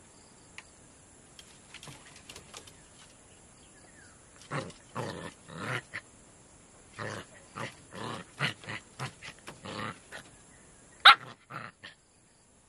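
A puppy play-growling in short bursts while wrestling with a cat, with one louder, sharper sound near the end.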